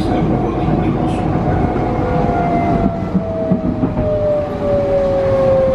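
Pesa 120Na Swing tram heard from inside the passenger car, its traction drive whining in a steadily falling pitch as it slows for a stop, over the rumble of wheels on rails. A few knocks come partway through.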